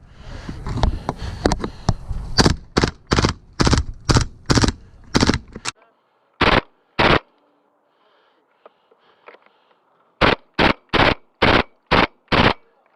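Airsoft gun firing fast single shots, about three a second, for the first half, then two more shots and a pause broken by a few faint clicks. A last string of seven quick shots follows about ten seconds in.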